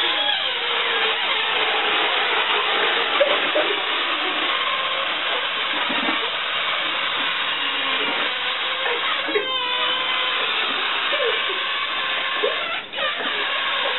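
Several balloons letting air out through stretched necks at once: a steady rushing hiss with faint held squealing tones and a few short pitch slides, dipping briefly twice near the end.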